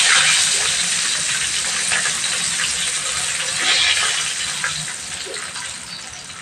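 Hot cooking oil in a wok sizzling and crackling around pieces of fried chicken as they are turned and lifted out. The sizzle dies down toward the end as the last piece leaves the oil.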